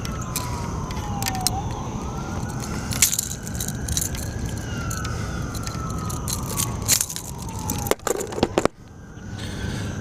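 A siren wailing, its pitch slowly falling, rising and falling again over several seconds, over a steady low noise. Scattered sharp clicks and knocks sound throughout.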